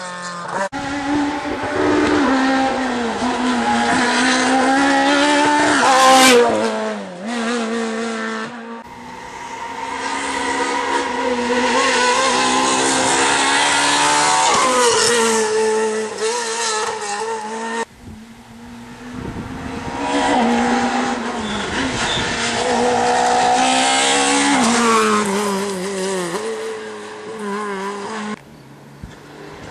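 Rally car engines revving hard on a tarmac stage: each car's pitch climbs, drops at gear changes and lift-offs, then climbs again, over several cars in turn, with abrupt breaks between passes.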